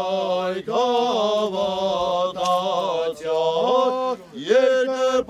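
Male voice chanting an Armenian church hymn in long held notes with melismatic turns and short breaks for breath, part of the consecration rite of a khachkar (carved stone cross).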